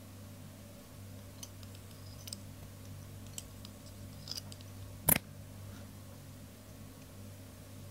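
Scattered light ticks of small tools and thread being handled while tying thread onto a lure, then one sharp click about five seconds in, over a steady low hum.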